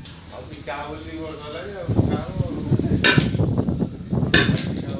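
Metal clinking and scraping as a thin steel rod works inside the bore of a heavy steel hydraulic-jack housing, with two sharp metallic knocks about three and four and a half seconds in.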